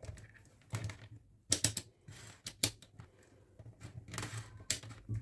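Irregular clicks and knocks of small hard plastic objects being handled, several in a loose run with the loudest about a second and a half in, over a faint steady low hum.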